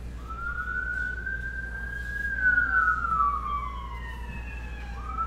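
An emergency vehicle's siren sounds a slow wail. The pitch climbs quickly, holds high for about two seconds, then sinks over the next three, and starts climbing again near the end.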